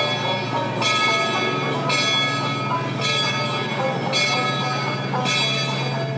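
A steamboat's bell ringing in slow, even strokes about once a second, each stroke left to ring on, over a steady low hum.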